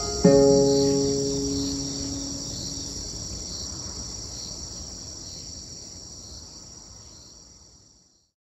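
A steady, high-pitched chorus of crickets. Just after the start a single plucked-string note sounds and slowly dies away. Both fade out together near the end.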